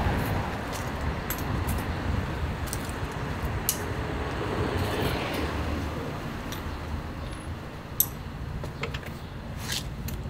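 Low, steady street-traffic rumble with scattered sharp metallic clicks and clinks from hand tools working on a motorcycle's wooden shipping crate, the loudest click about eight seconds in.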